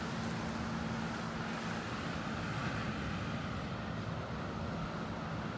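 Steady low engine hum over a haze of outdoor background noise.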